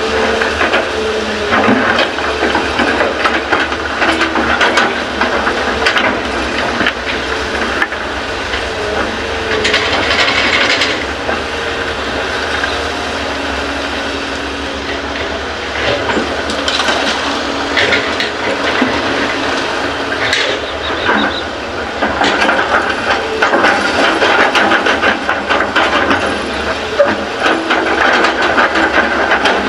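Hyundai hydraulic excavator working as it loads fill soil into a dump truck: diesel engine running steadily under a hiss, with repeated knocks and rattles.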